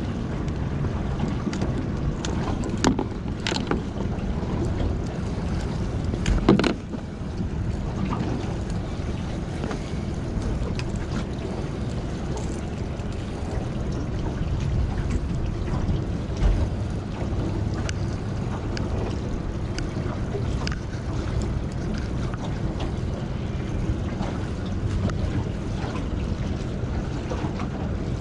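Steady wind noise on the microphone over water lapping at a small boat. A few sharp clicks of pliers working the lure's treble hooks, the loudest about six and a half seconds in.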